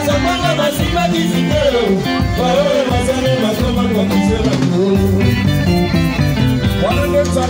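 Live band music: electric bass and guitars over drums, with a voice singing a melody.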